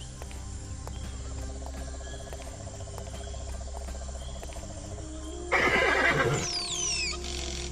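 A horse neighing once, loud and sudden about five and a half seconds in, its pitch falling over about a second, over a steady low background.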